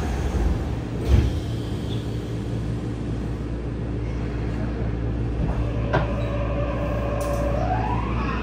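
Sliding passenger doors of a Yokohama Municipal Subway 3000S car closing, ending in a thud about a second in. Near the end the train starts off: its Mitsubishi IGBT-VVVF inverter whine holds one pitch, then climbs steeply as the train accelerates, over a steady hum of the car's equipment.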